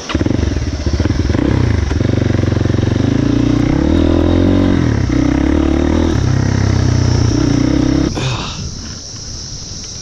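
Crossfire 250 dirt bike's single-cylinder four-stroke engine running under way, its pitch rising and falling with throttle and gear changes. The engine sound cuts off abruptly about eight seconds in, leaving quieter outdoor background.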